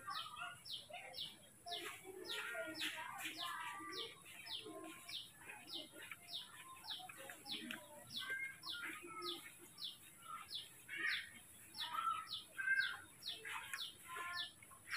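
Birds calling: a short, high chirp repeated about twice a second, with other chirps scattered among it, over a faint steady high hum.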